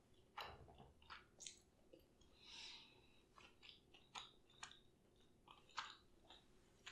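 Faint, close-up chewing of a large mouthful of cheese curd: irregular wet smacks and clicks of the mouth working through a long, slow chew.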